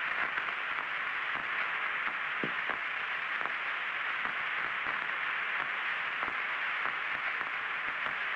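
Steady radio hiss on the Mercury capsule's air-to-ground voice channel between transmissions, with a few faint clicks.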